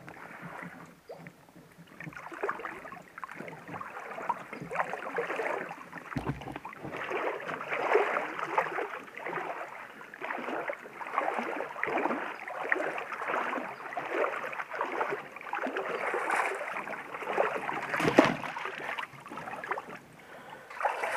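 Creek water splashing and sloshing around legs wading through it, swelling with each stride about once a second, with one sharper knock near the end.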